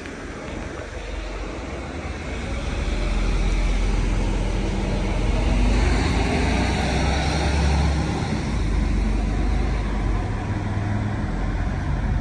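Steady outdoor rumble and hiss, heavy in the low end, swelling about three seconds in and then holding.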